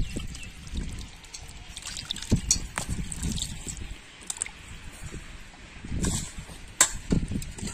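Water sloshing and dripping as pieces of fish are washed by hand in a pot of water: irregular splashes and drips, quieter for a moment around the middle.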